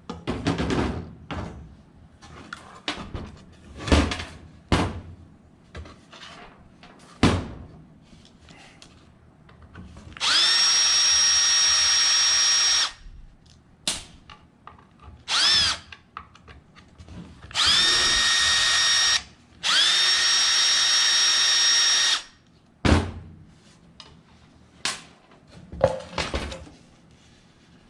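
Cordless drill-driver running in steady high-pitched bursts (three runs of two to three seconds and one short blip) while removing screws from the ceiling fan, with clicks and knocks of parts being handled in between.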